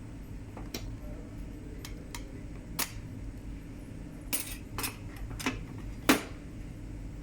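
A scattering of short, light clicks and clinks, like hard objects being handled, about eight in all, the loudest about six seconds in, over a steady low hum.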